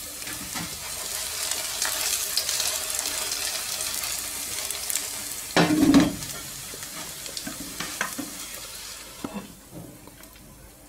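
Potato rösti sizzling as it fries in vegetable oil in a nonstick pan. About six seconds in there is a brief louder scrape of the spatula against the pan, and the sizzle fades near the end.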